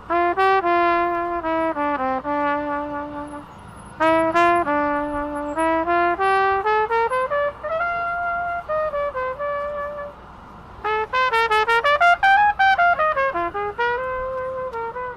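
Solo trumpet playing a slow jazz melody in three phrases of held and gliding notes, with short breaths between them and a quick run of short notes in the last phrase.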